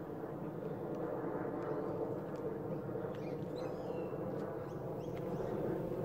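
Steady low background rumble, with a short bird chirp about three and a half seconds in.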